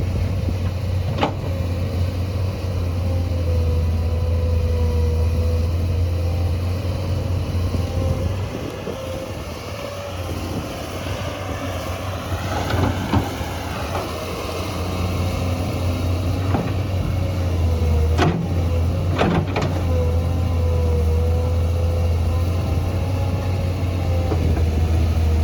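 Volvo digging machine's engine running steadily, with a wavering whine over it. The engine drops back for a few seconds near the middle. There are a few sharp clanks, one near the start and two close together later on.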